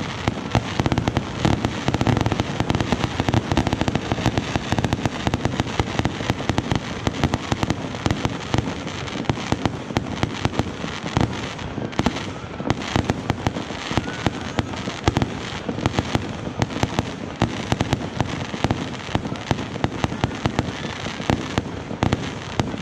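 Fireworks display in a dense, unbroken barrage: many sharp bangs and crackles every second.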